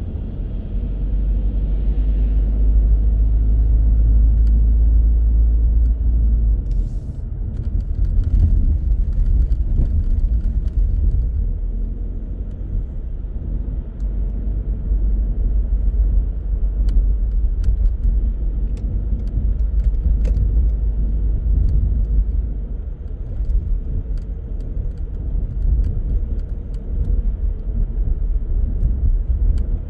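A car driving: a steady low rumble of engine and tyre road noise that swells and eases, with scattered faint clicks.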